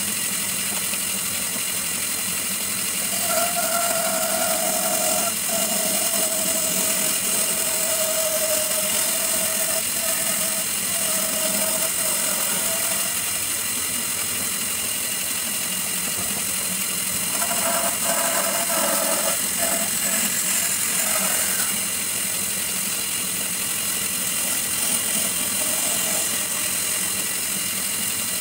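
Bandsaw running steadily, with a louder, steady tone added while the blade cuts through a thick wooden board: one long cut starting about three seconds in, and a shorter one a little past halfway.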